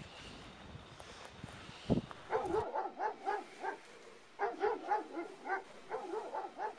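Dogs barking in quick runs of repeated barks, about three or four a second, starting a little over two seconds in, with a brief pause in the middle.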